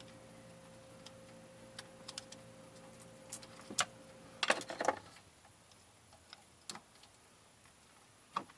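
Screwdriver tip clicking and scraping on the plastic locking tab of a bulb-socket connector while prying it loose: scattered light clicks, with a quick cluster of clicks about halfway. A faint steady hum under it cuts off at about the same moment.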